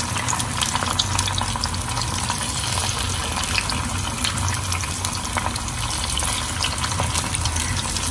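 Marinated nethili (small anchovies) and curry leaves deep-frying in hot oil in a kadai: a steady bubbling sizzle with many small crackles and pops. The fish has just gone into the oil and is frying hard before being turned.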